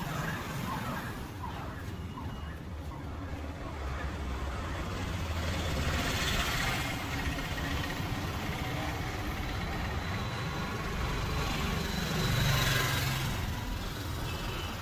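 Street traffic: a steady low rumble of passing vehicles, swelling louder twice as vehicles go by, about six seconds in and again near the end.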